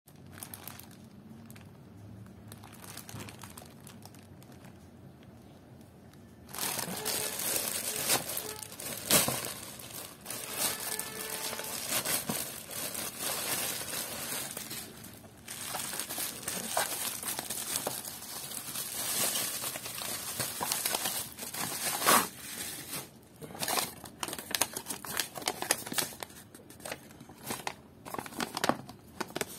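Plastic courier mailer pouch crinkling and rustling as it is handled and opened by hand, faint at first and loud from about six seconds in. Near the end the sound turns to scattered sharp crackles as paper packing slips are handled.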